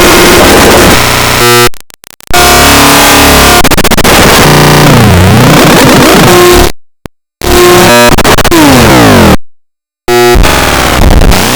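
The Flippy 'flips out' cartoon sound effect, heavily distorted and clipped, layered with pitch-shifted copies that sweep down and up. It cuts to silence abruptly three times: around 2 s, 7 s and 9.5 s in.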